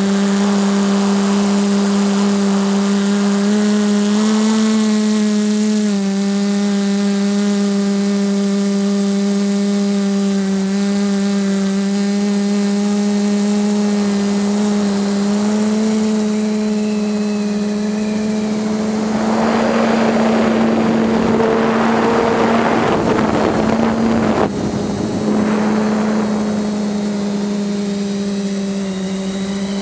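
TBS Discovery quadcopter's four brushless motors and propellers running, heard from the GoPro on board: a steady hum whose pitch shifts slightly as the throttle changes. In the later part a rush of wind noise swells over it for several seconds.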